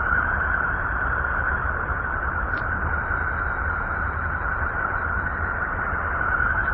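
Electromagnetic emissions from the planet Uranus converted into sound: a steady, unchanging rushing noise with a brighter hiss band in the upper middle and a low rumble underneath.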